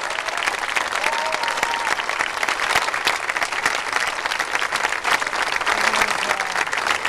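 A large crowd applauding steadily: dense, continuous hand-clapping from many people.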